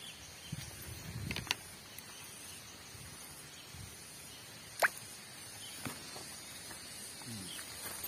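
Steady high-pitched chirring of insects in farm undergrowth, with a few rustles early and one sharp click about five seconds in.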